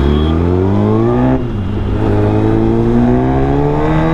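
Suzuki 1000cc sportbike engine accelerating hard under the rider. The revs climb, drop sharply at an upshift about a second and a half in, then climb again more slowly.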